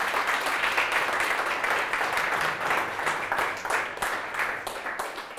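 Audience applause: many hands clapping together in a dense patter that fades out near the end.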